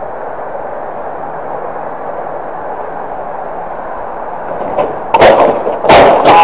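Steady running noise of a moving vehicle, then, a little under five seconds in, a sudden series of loud crashing impacts: a collision at a railway level crossing.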